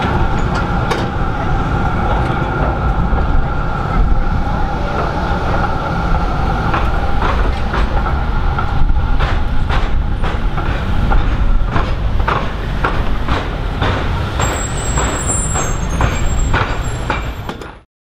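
Steel tram wheels clacking over the crossing diamonds of a tram–railway level crossing (rail square). A run of sharp, irregular clacks starts about seven seconds in, over a steady low hum of motors and traffic. The sound cuts off abruptly just before the end.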